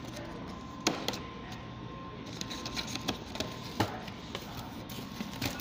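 A cardboard meal box being handled and opened, with a few sharp knocks, the loudest about a second in and just before four seconds, over steady indoor room noise.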